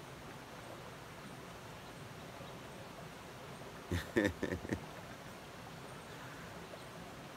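A man's short laugh, a quick run of four or five 'ha' pulses about four seconds in, over a faint steady background hiss.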